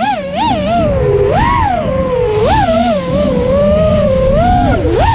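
FPV racing quadcopter's motors whining, the pitch swinging up and down rapidly with the throttle over a low rushing noise.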